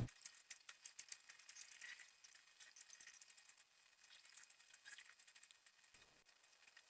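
Near silence with faint, irregular small clicks.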